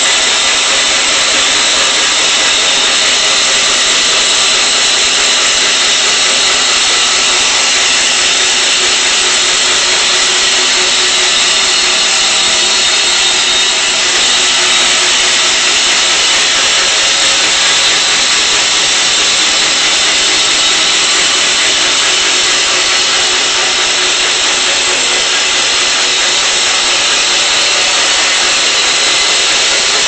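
Homemade electric-motor bandsaw sawmill running steadily, its Wood-Mizer 1.25-inch band blade cutting lengthwise through a log as the saw head is pushed along the track.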